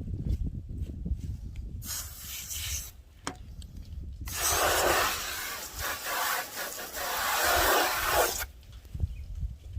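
Hand wet-sanding a plastic car headlight lens with fine 2,500-grit sandpaper: abrasive rubbing that hisses, first briefly about two seconds in, then for about four seconds from the middle, over a low rumble of handling.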